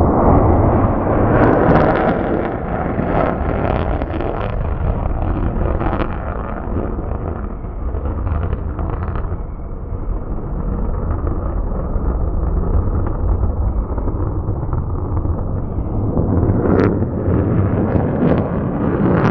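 Blue Angels F/A-18 Super Hornet jet passing low and fast: a continuous, deep jet-engine roar with a crackling edge, and a single sharp crack near the end.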